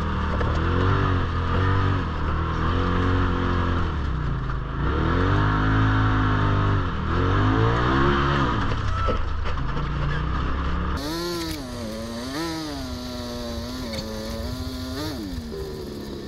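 Turbo Polaris RZR side-by-side engine revving up and down over and over as it is driven off-road. About eleven seconds in the sound cuts to a thinner, higher engine note that keeps rising and falling.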